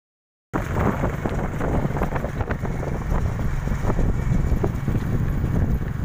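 Loud, rough low rumble with wind buffeting the microphone, cutting in suddenly about half a second in, with scattered small clicks.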